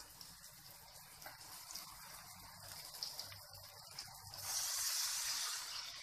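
Water being poured into a hot pan of cooked-down tomatoes and onions, gushing and hissing. The hiss swells for about a second and a half near the end.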